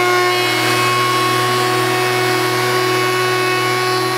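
Vevor benchtop thickness planer with a three-blade cutterhead running under load, planing a board that feeds through it in a light skim cut off the top. The motor and cutterhead make a loud, steady whine.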